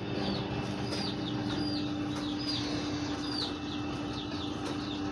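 A bird chirping over and over, each chirp a short high falling note, about one every 0.7 seconds, over a steady low hum and background hiss.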